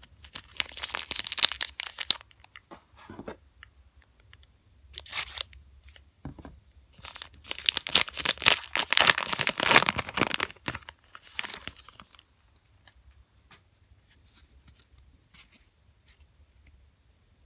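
Foil wrapper of a trading-card pack being torn open and crinkled. There is a burst of tearing about half a second in, a short one about five seconds in, and a longer, louder stretch from about seven to twelve seconds. After that there are only faint ticks as the cards are handled.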